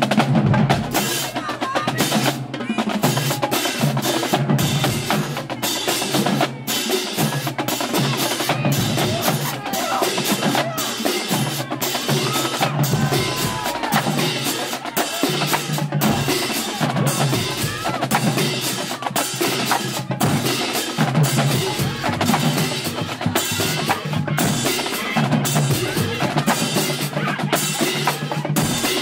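Marching band drumline playing a fast, continuous cadence: rapid snare drum strokes and rolls over a repeating lower drum pattern.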